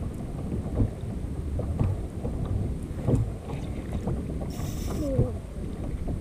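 Wind buffeting the microphone over water lapping against a plastic fishing kayak's hull, with scattered small knocks and a brief hiss about two-thirds of the way through.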